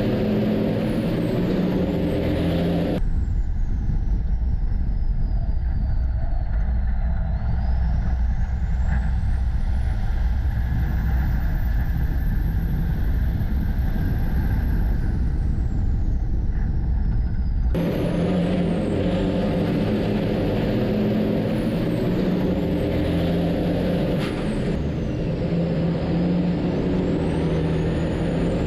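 Racing semi-trucks' diesel engines running hard around the oval, a steady drone of several engine pitches. For a stretch in the middle the sound switches to a heavier, closer low rumble heard from on board one of the trucks.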